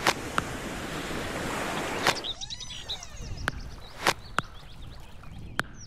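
Intro sound effects: a swelling rush of noise for about two seconds, then a sweeping swoosh, with sharp clicks scattered throughout. Faint bird chirps come in during the second half.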